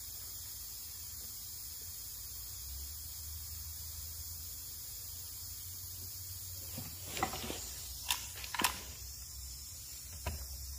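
Steady low workshop hum with faint hiss, then a few sharp knocks and clacks of pine shelf pieces and a pneumatic brad nailer being handled on a wooden bench about seven to nine seconds in, and one more sharp click near the end.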